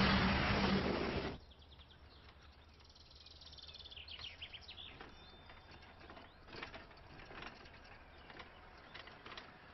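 Loud road and engine noise of a moving truck that cuts off abruptly about a second in, giving way to quiet countryside where birds chirp now and then.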